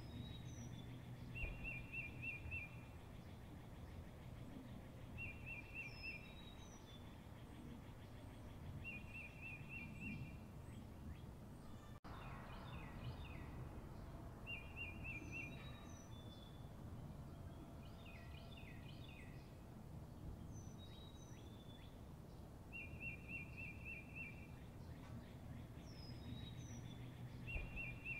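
Birds calling over a low steady rumble: a short trill comes back every few seconds, with brief high falling whistles and scattered chirps in between.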